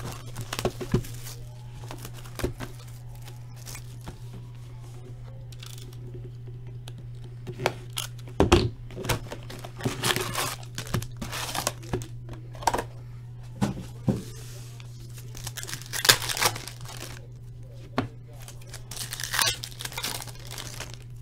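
Plastic shrink wrap and a foil trading-card pack being torn open and crinkled by hand, in irregular bursts of tearing with pauses between, over a steady low hum.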